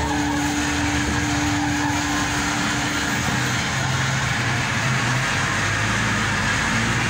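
Engines and road noise of jammed traffic: trucks, cars and motorcycles running at slow speed, heard from a vehicle edging past them. A steady engine hum fades out about three seconds in.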